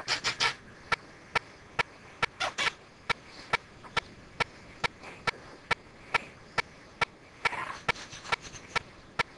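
Pleo robotic dinosaur making its sounds: a steady run of short, evenly spaced clicks, a little over two a second, with louder chirping bursts at the start, about two and a half seconds in, and again around seven and a half seconds.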